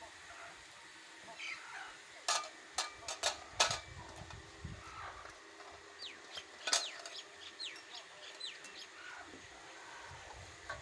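Chickens clucking, with several sharp knocks about two to four seconds in and another near seven seconds, and a run of short, high, falling chirps between about six and eight and a half seconds.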